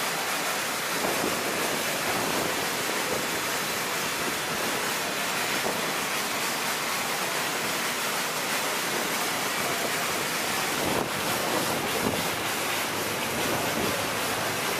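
Water jetting from a robotic washing arm's spray nozzles onto an F-16 fighter jet's airframe: a steady rushing hiss, with a couple of faint knocks late on.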